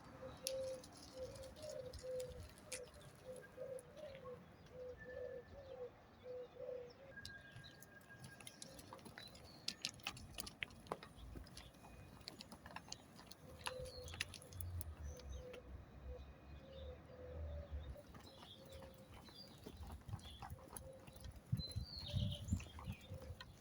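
Pigeons cooing in two long runs of repeated low phrases, with small birds chirping at higher pitch and a low rumble for a few seconds midway.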